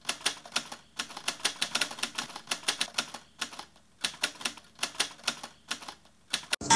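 Rapid typing clicks: keystrokes come several a second in quick runs, broken by short pauses.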